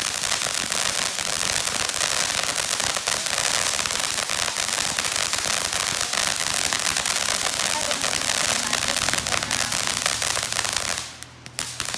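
Ground fountain firework spraying sparks: a steady hiss thick with many small rapid pops from its crackling stars. It breaks off for under a second near the end, then starts again.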